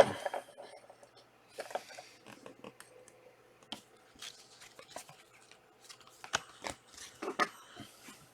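Panini Prizm trading cards and their pack wrappers being handled: scattered soft crinkles, rustles and small clicks.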